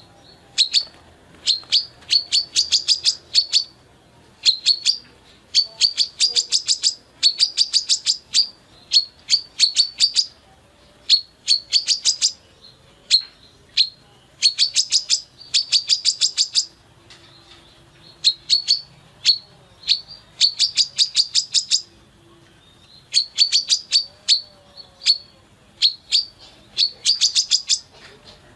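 Female brown-throated sunbird calling in repeated bursts of rapid, sharp, high chips. Each burst lasts about half a second to a second, with short pauses between them.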